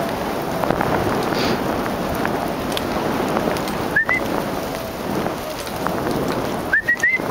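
Dog sled gliding over packed snow behind a running team: a steady crackling hiss of runners and paws on the trail. A short rising squeak comes about halfway through, and three more come quickly near the end.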